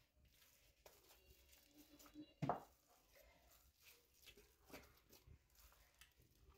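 Near silence: faint, sparse soft sounds of hands kneading and pressing risen yeast dough on a silicone mat to knock the air out, with one brief louder thump about two and a half seconds in.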